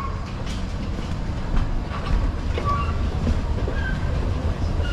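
Airport moving walkway running underfoot: a steady low mechanical rumble, stronger from about two seconds in as it is ridden.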